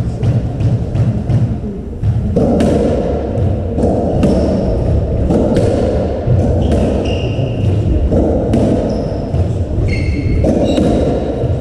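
Racketball rally: the rubber ball struck by rackets and smacking off the walls and wooden floor of a squash court in quick, irregular succession. Short high squeaks of court shoes on the floor come in the middle and near the end.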